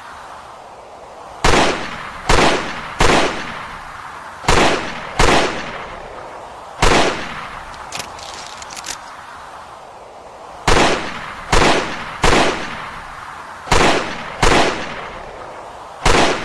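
Smith & Wesson Model 29 .44 Magnum revolver fired twelve times: two strings of six shots, one full cylinder each, split by a pause of about four seconds. Each shot is a sharp crack with a trailing echo.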